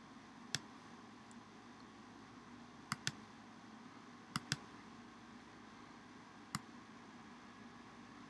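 Computer mouse clicks over a faint steady hum: a single click, then two quick double-clicks, then one more single click near the end.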